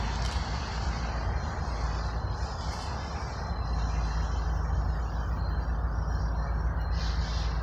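Road traffic passing, under a steady low diesel rumble from the distant approaching freight train's locomotives, which firms up into a deeper hum about halfway through. A few short high chirps come over the top.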